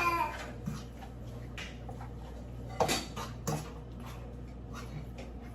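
A fork clinking and scraping against a dish while curry-seasoned chicken is stirred: a few scattered knocks, the loudest about three seconds in, over a steady low hum.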